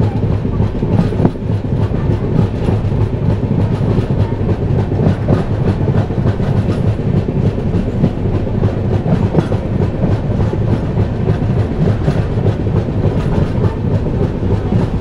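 Passenger train coach running at speed: steel wheels rolling on the rails with a steady heavy rumble and a constant scatter of clickety-clack clicks, heard through an open coach window.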